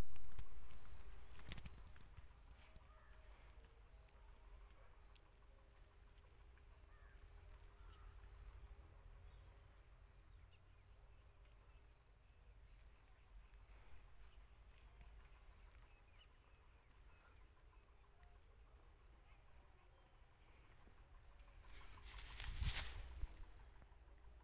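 Insects chirring in a high, thin trill. The trill is steady at first and breaks into rapid, even pulses about nine seconds in. Under it is a low rumble of wind and handling on the microphone, with loud handling noise at the very start and again about 22 seconds in.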